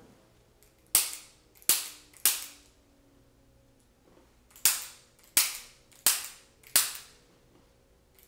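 Chiropractic activator adjusting instrument firing: sharp spring-loaded clicks, three in quick succession about a second in, then four more evenly spaced after a short pause, and one more at the end.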